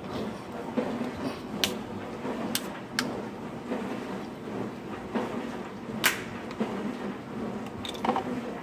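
Close-mouthed chewing of a mouthful of dry white powder, with a few short sharp crackles about one and a half, two and a half, three and six seconds in, over a steady background hum.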